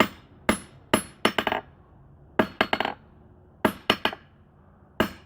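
Hammer striking the hardened face of a homemade railroad-rail anvil in about six quick groups of two to four hits, bouncing back off the steel with short metallic rings. The lively rebound is the sign of a well-hardened anvil face.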